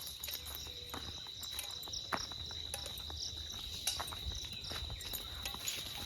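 Insects calling in a steady, unbroken high-pitched drone, with scattered faint ticks and taps.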